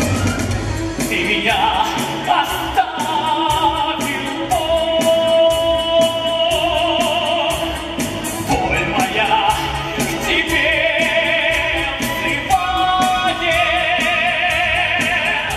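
Rock-opera music: a singer holds long, high notes with heavy vibrato over a band keeping a steady beat.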